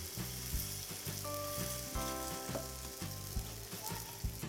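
Beetroot-and-semolina chila batter sizzling in a hot, oiled nonstick pan as it is spread out with a steel ladle: a steady frying hiss. Faint background music runs underneath.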